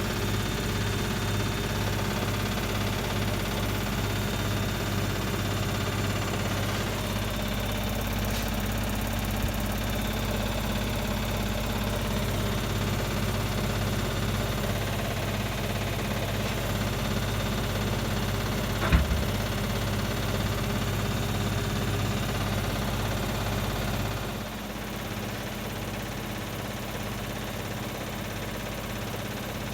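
Hotpoint WMA30 washing machine running an unbalanced spin: the motor turns the drum with a steady low hum and a regular pulsing beat, because the load is out of balance. A single sharp knock comes partway through, and the running drops a step quieter near the end.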